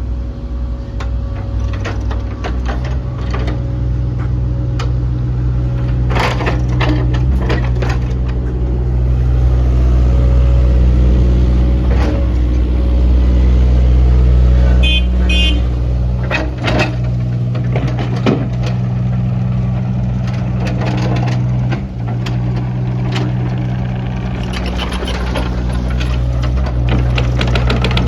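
JCB 8050 RTS excavator's diesel engine running steadily, with repeated knocks and clatters from the machine working. Its engine note rises a little about halfway through, and a short beeping sounds about 15 seconds in.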